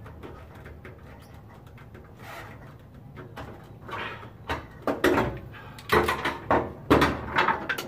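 Sharp knocks and clatters of hands and tools working on a truck's steel frame and fuel line, coming as a quick string in the second half over a steady low hum.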